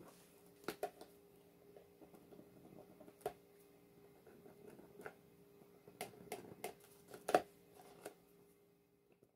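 A pen tracing a line on paper laid inside a cardboard box: faint scratching with scattered light taps and clicks, the sharpest one about seven seconds in, over a faint steady hum.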